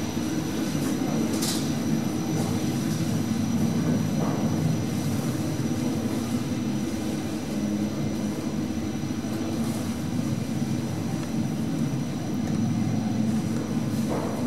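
KONE third-generation EcoDisc service lift travelling down between floors: a steady rumble and hum of the moving car, heard from inside it, with a light click about a second and a half in.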